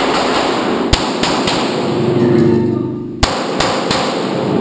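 Two pistol shots from a CZ SP-01, about two and a quarter seconds apart, over a loud continuous noisy background.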